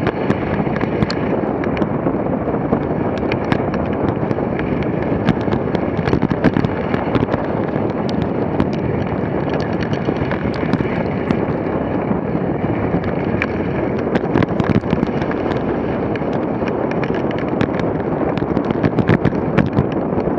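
Dog sled running fast over a packed snow trail: a steady rushing and scraping of the runners with wind on the microphone, broken by frequent sharp clicks and knocks as the sled rattles over the bumps.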